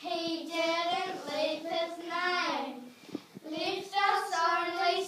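Children's voices singing in three short phrases with brief pauses between them.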